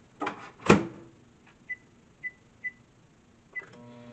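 Microwave oven: two knocks, the second sharp and loud, then four short high beeps from the keypad, and the oven starting up with a steady hum near the end.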